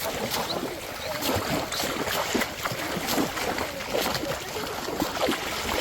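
Shallow river water splashing and sloshing, with many short splashes in quick, uneven succession, as of someone working by hand in the water to catch fish.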